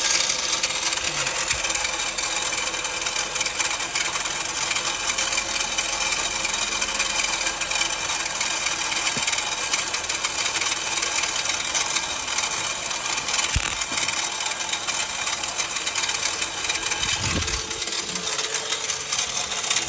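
2006 Mazda 3's four-cylinder engine idling steadily, running after a no-crank, single-click fault was got round by feeding 12 volts straight to the starter.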